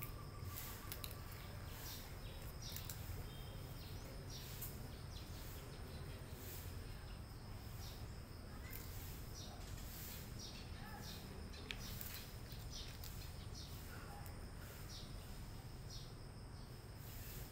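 A cat chewing crunchy food pieces from a plastic plate, with short soft crunches every half second to a second, over faint steady background noise.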